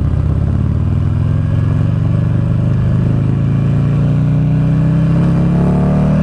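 Buell XB12SS Lightning Long's V-twin engine pulling hard under acceleration, its pitch climbing steadily, then falling back sharply at the very end.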